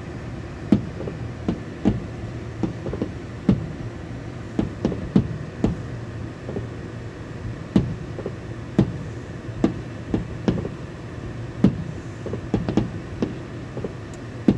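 Fireworks going off in the distance: a string of sharp bangs and pops at irregular spacing, about one or two a second, over a steady low hum.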